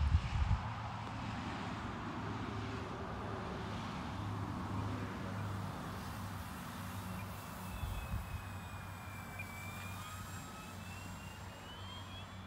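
Electric motors and propellers of an FMS Tigercat twin-engine RC model plane droning as it flies past slowly, with a thin whine that dips and then rises in pitch in the second half and the sound fading near the end. Gusts of wind buffet the microphone at the start and again about eight seconds in.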